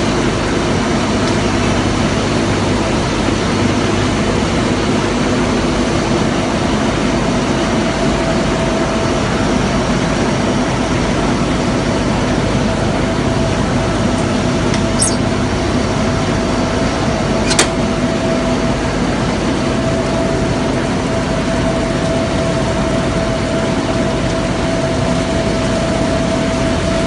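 Ring die organic fertilizer granulator running, a loud, even machine drone with a steady whine in it. One sharp click comes about two-thirds of the way through.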